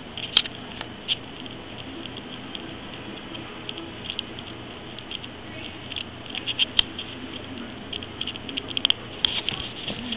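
Scattered light taps and scratchy clicks, with a few sharper clicks, as a kitten paws at a camera strap right against the camera; the scrabbling gets busier in the last few seconds.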